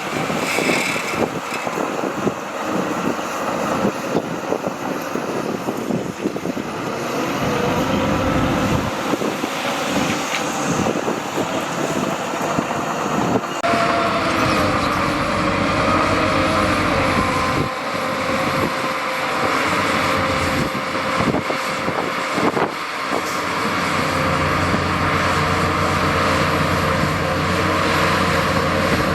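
Diesel engines of heavy earthmoving machinery running under load, their pitch rising and falling as they work, with a few sharp knocks.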